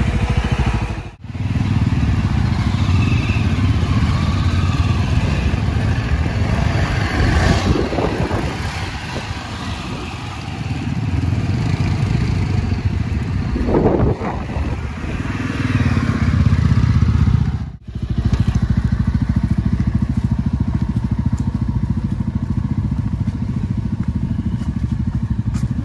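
Yezdi Adventure single-cylinder motorcycle engine running under load on a rough off-road trail, surging louder a couple of times as the throttle is opened. The sound cuts out sharply twice, about a second in and again near 18 seconds.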